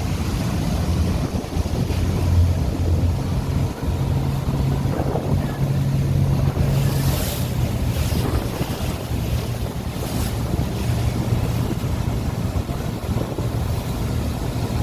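The Rhine Falls' waterfall rushing as a loud, steady roar, with wind buffeting the microphone. Under it runs a low, steady engine drone, and there are brief gusts of hiss about seven and ten seconds in.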